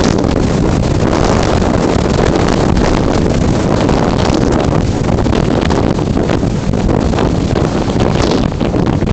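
Loud rushing wind buffeting the microphone of a camera mounted on an unpowered RC slope glider in flight, with no motor sound.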